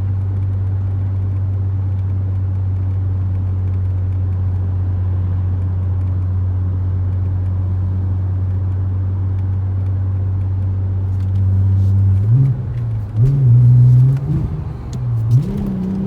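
Audi RS4's twin-turbo V6 running at a steady cruising engine note. About twelve seconds in, the revs jump up and down a few times, then climb steadily under acceleration near the end.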